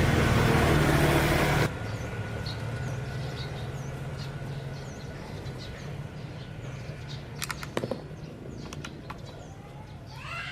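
A small engine running loudly, dropping suddenly about two seconds in to a quieter steady hum that fades slowly. Birds chirp throughout, with a few sharp clicks near the end.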